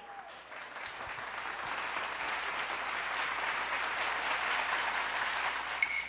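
Live studio audience applauding. The clapping swells over the first couple of seconds and then holds steady.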